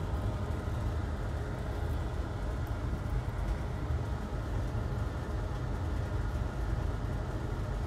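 Steady low background hum and rumble at an even level, with no distinct events.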